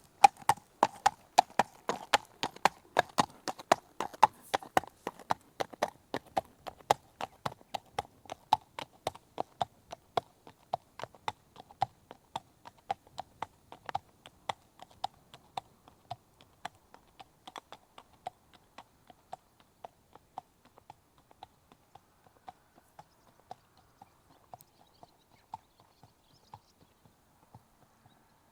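Horse walking on tarmac, its hooves striking the hard road in a steady clip-clop rhythm. The hoof beats are loudest at first and grow steadily fainter.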